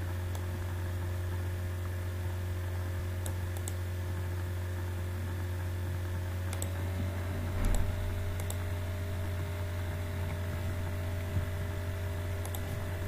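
Steady electrical hum with a few faint computer-mouse clicks scattered through, and a single low thump a little before the eight-second mark.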